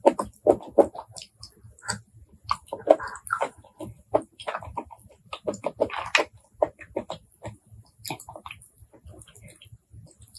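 Close-miked eating sounds of shellfish (blood cockles and apple snails): chewing, with a quick, irregular run of short clicks and mouth noises.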